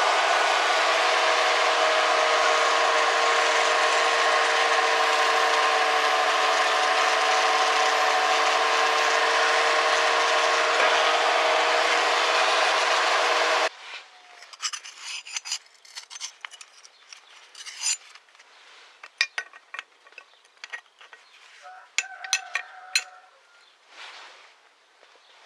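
Power tool running steadily, a whine over a grinding hiss, as it abrades a part of the plane; it cuts off abruptly about halfway through. Then quiet scattered clicks and light scraping.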